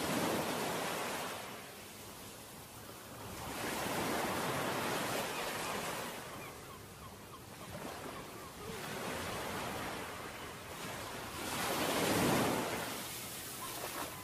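Ocean waves washing onto a shore, swelling and ebbing roughly every three to four seconds.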